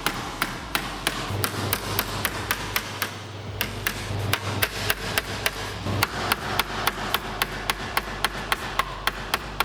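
Hammer tapping on the aluminium body frame in quick, even blows, about four a second, as the deformed metal is worked back into shape. A low steady hum comes in about a second in.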